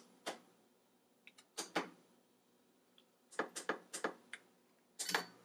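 Faint clicks of the push buttons on a Ninja Foodi two-basket air fryer's control panel as they are pressed: a few single clicks, then a quick run of about five clicks about three and a half seconds in as the cook time is stepped up to 5 minutes, and one more near the end.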